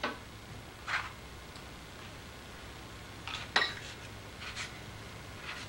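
A handful of short, light clinks and taps of metal utensils and cookware on the counter, the loudest about three and a half seconds in, over a low steady hum.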